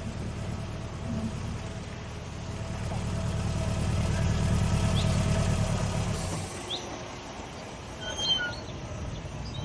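A motor vehicle's engine running and growing louder as it pulls up, then cutting off about six seconds in. A few short bird chirps follow.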